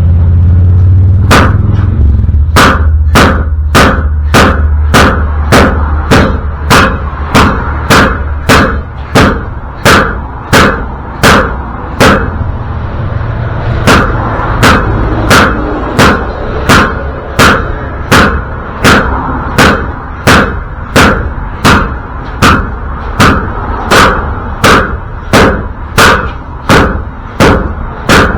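Hammer blows on the 1984 Toyota pickup's rear wheel bearing, struck at a steady rhythm of roughly three blows every two seconds with a short pause partway through. The bearing is not coming free: it is stuck and needs a press.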